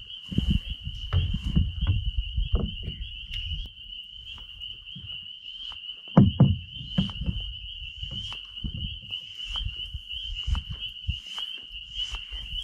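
A steady, high-pitched insect trill with no breaks, under scattered low knocks and rumbles; the loudest knock comes about six seconds in.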